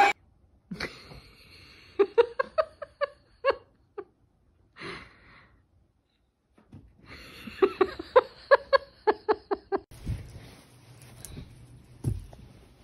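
A person laughing in quick runs of short bursts: one run about two seconds in, a longer one from about seven to ten seconds in. A couple of low thumps near the end.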